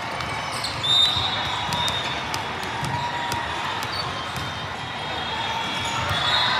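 Indoor volleyball rally: sharp ball contacts and shoe squeaks on the court floor, over the steady murmur of the gym. High squeaks come at about the first second and again near the end.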